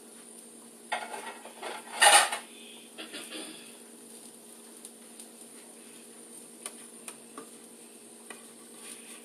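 Plates and utensils clattering in a kitchen, with a loud clank about two seconds in, then a few light taps later on, over a steady hum.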